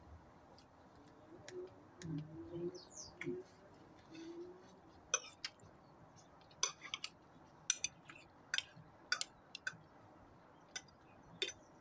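Metal fork and spoon clinking against the serving bowl while eating, about a dozen short sharp clinks spread through the second half. A few low murmured mouth sounds come in the first half.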